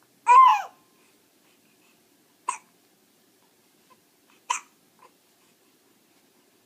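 A baby hiccupping: a short squeaky vocal sound just after the start, then two sharp, brief hiccups about two seconds apart, with a faint one just after the second.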